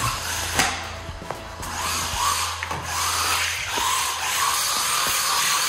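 WLtoys 124019 1/12-scale electric RC buggy driving on a concrete floor: its motor whines up and down with the throttle and its tyres scrub. There are a few sharp knocks, the loudest about half a second in, from the buggy landing and bumping, plus a low hum through the first half.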